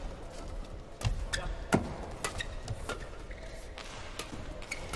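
Badminton doubles rally: sharp racket strikes on the shuttlecock, about every half second.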